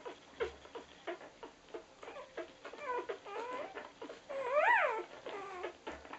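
Newborn rough collie puppies suckling at the mother's teats: a stream of quick wet sucking and smacking clicks, with squeaky whimpers about three seconds in and one louder squeal that rises and falls at about four and a half seconds.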